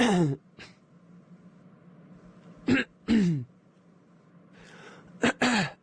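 A man clearing his throat three times, about two and a half seconds apart. Each time is a sharp catch followed by a short voiced "ahem" that falls in pitch.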